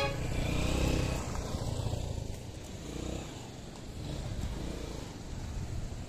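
Dual-sport motorcycle engine running, louder for the first two seconds or so, then quieter and steady.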